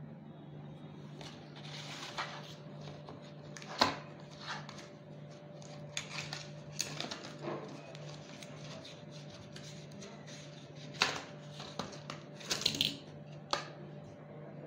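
A small cardboard carton being opened by hand and a foil blister strip of softgel capsules taken out, turned over and set down: scattered rustles and sharp clicks, the sharpest about four seconds in and a cluster of rustling near the end, over a steady low hum.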